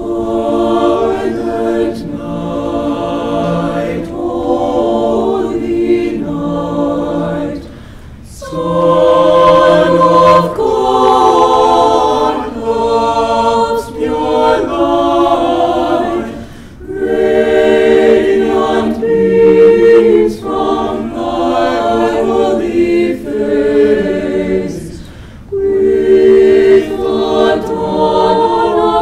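Mixed-voice high school choir singing a cappella in several parts, in long phrases with three short breaks for breath.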